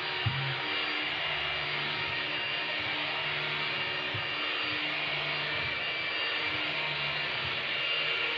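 Vacuum cleaner running steadily, with a short knock just after the start.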